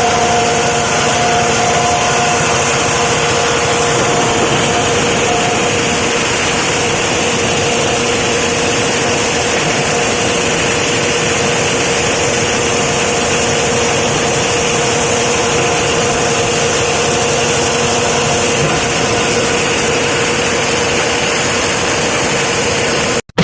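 Plastic crusher machine running steadily: a loud, even mechanical noise with a constant hum, cutting off abruptly at the very end.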